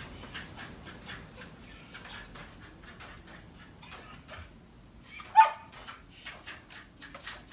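A single short, high yelp about five seconds in, amid scattered light clicks and taps.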